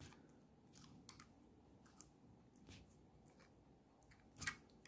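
Faint small clicks and handling sounds as the metal bottle-cap lure is pressed and squeezed flat, with one louder click about four and a half seconds in.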